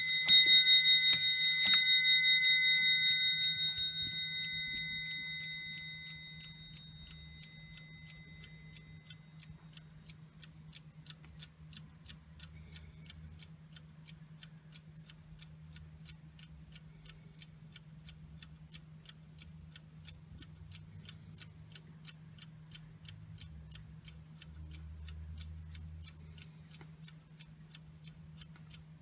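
Dutch 8-day key-wind bracket clock's movement striking its bell dome, once at the start and again about two seconds in. The bell rings out and fades over several seconds, then the movement ticks steadily.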